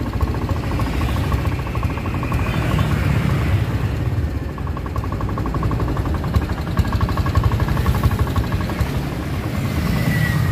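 Honda Scoopy scooter's single-cylinder engine running, with small uneven peaks in level partway through.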